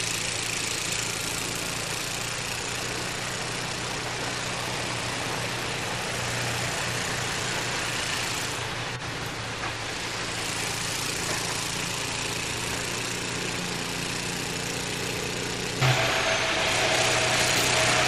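Gas snowblower's small engine running steadily under load, with the hiss of snow being thrown from the chute. Near the end the sound gives way abruptly to a louder rushing noise with a short knock.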